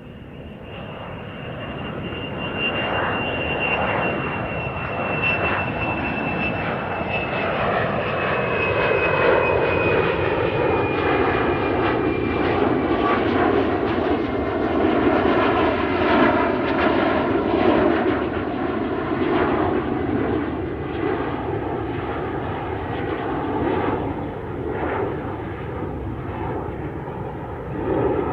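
Airplane engines at take-off power: the roar builds over the first few seconds and then holds loud and steady, with a high whine that slowly falls in pitch during the first half.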